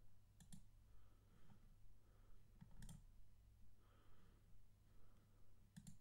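Faint computer mouse clicks, in three quick pairs a few seconds apart, over a quiet room with a low steady hum.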